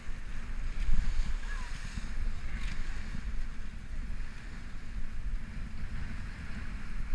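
Wind buffeting the microphone in gusts over the rush and splash of water along the hull of a Cal 40 sailboat heeled over and sailing fast in strong wind.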